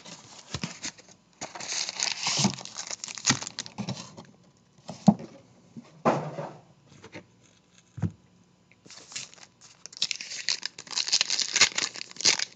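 Plastic wrapping being torn and crinkled as a hobby box of trading cards is unwrapped and opened, in irregular crackling spells that get busier near the end. A couple of light knocks in between, from handling the box.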